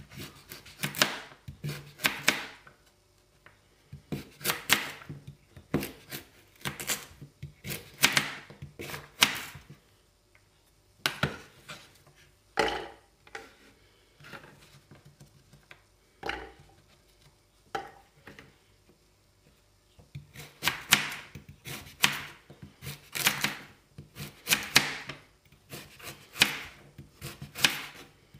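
Knife slicing carrots into rounds on a cutting board: runs of quick, crisp cuts, each ending in a tap of the blade on the board. The runs break off in the middle for a sparser stretch of single cuts, then pick up again.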